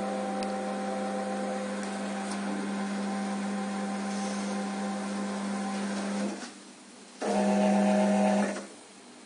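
Conveyor drive of a QMAX NF-1 needle detector running with a steady motor hum. The hum drops away about six seconds in, then comes back louder for about a second and a half.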